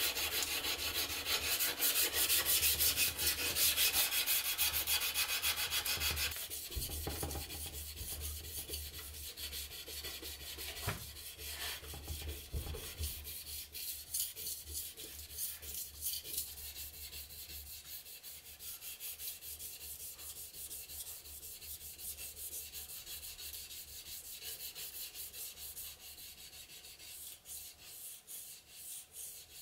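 Steel knife blade being hand-sanded with abrasive paper on a block: continuous back-and-forth rubbing strokes, louder for the first several seconds and softer after, over a low steady hum.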